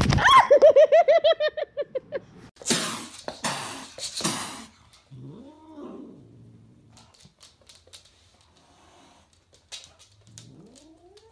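A cat yowls loudly for about two seconds, a wavering cry that falls in pitch. Two bursts of noise follow, then fainter short animal cries, one rising in pitch at the end.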